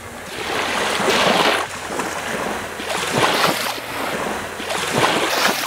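Small waves breaking and washing up onto a sandy beach, surging and receding every second or two.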